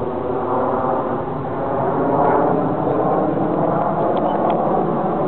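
Steady jet engine noise from a formation of BAE Hawk T1 jets flying overhead, growing a little louder about two seconds in.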